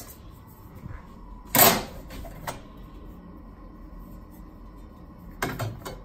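Sheet-metal blower plate of an over-the-range microwave being handled and set in place: one loud metal clank about a second and a half in, a lighter click a second later, then a few more knocks near the end.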